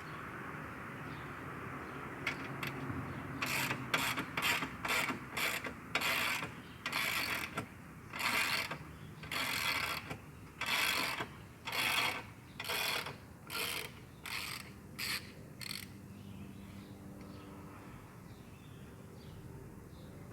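A ratcheting mechanism worked in repeated strokes: about fifteen short rattling bursts in a row, each under a second. They begin a few seconds in and stop a few seconds before the end.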